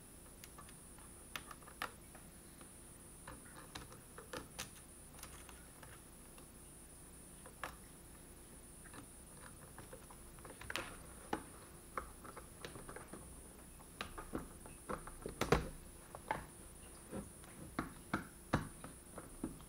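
Irregular light clicks and taps of small plastic and metal laptop parts and a small screwdriver being handled during reassembly, with one louder knock about fifteen seconds in.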